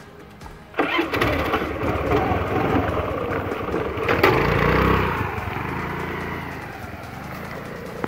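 Scooter engine starting about a second in, then revving as it pulls away and fading as it rides off.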